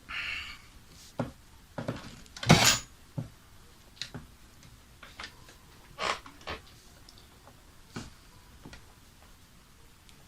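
Irregular clicks and taps of wires and small parts being handled, with a short scrape at the start and a louder knock about two and a half seconds in, while a PC power supply is wired up by hand.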